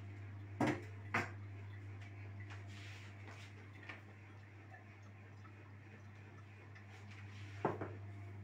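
A few short, sharp knocks and clicks of kitchen handling, bowls and utensils being moved on the counter, over a steady low hum.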